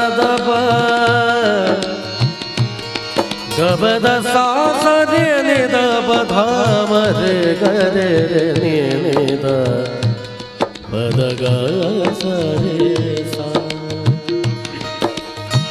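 A man sings a long held note, then fast ornamented runs that glide up and down, over harmonium and tabla accompaniment.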